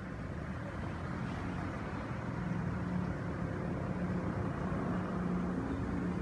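A motor running steadily: an even low hum that strengthens a couple of seconds in, over a rumbling background.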